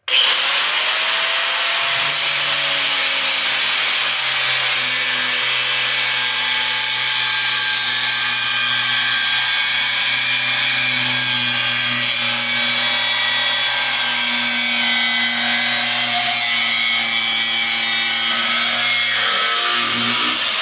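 Hercules 13 amp angle grinder with a cutting wheel, switched on suddenly and running loud and steady while it cuts. The cut adds a low steady hum from about two seconds in until near the end.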